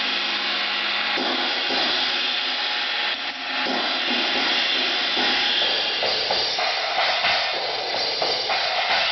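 China cymbal struck again and again, a loud ringing wash that never dies away, with a true china-type sound.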